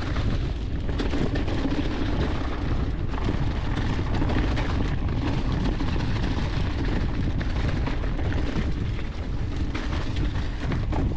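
Mountain bike rolling fast downhill over a dirt trail covered in fallen leaves: a steady rumble of wind on the microphone, with the crackle of tyres through leaves and many small clicks and rattles.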